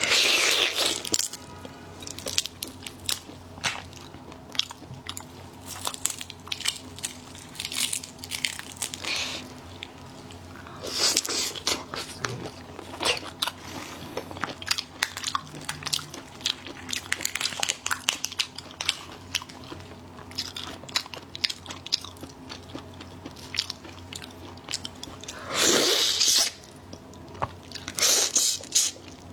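Close-miked eating: repeated crunchy bites and chewing, made up of many small crackles. A few louder bursts stand out, near the start, about eleven seconds in, and twice near the end.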